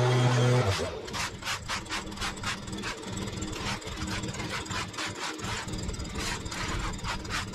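A shovel blade scraping grass clippings across a concrete path in short, repeated strokes, a few scrapes a second. A low engine hum is heard in the first second.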